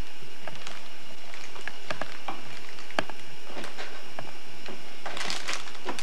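Light clicks and knocks of plastic toy kitchen pieces being handled, with one sharper knock about halfway through, over steady videotape hiss.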